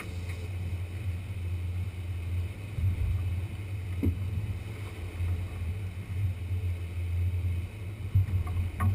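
Twin outboard motors running steadily with the boat under way, a continuous low drone with the rush of the wake and wind on the microphone.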